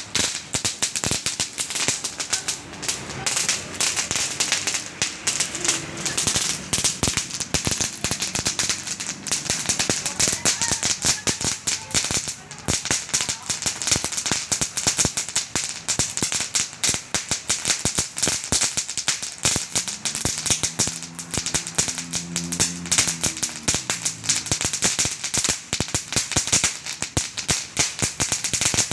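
Dense, continuous crackling from two small ground fireworks burning with sparks and smoke, a fast stream of sharp pops with no pauses.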